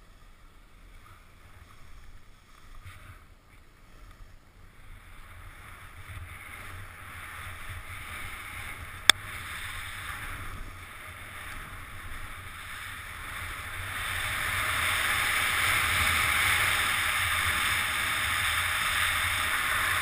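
Snowboard sliding over wind-crusted snow: a scraping hiss that grows louder as speed builds, then holds steady through the second half. A single sharp click about nine seconds in.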